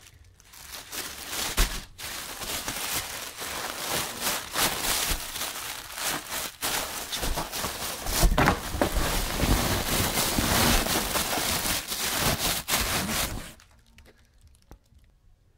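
Plastic bags around foam padding crinkling and rustling as they are pushed and pressed into a cardboard box around a rack unit, an irregular crackle that stops suddenly about two seconds before the end.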